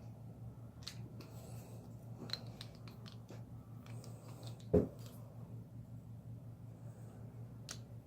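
Light clicks and scrapes of threaded metal air fittings and tools being handled and tightened, with one sharper knock a little before five seconds in, over a steady low hum.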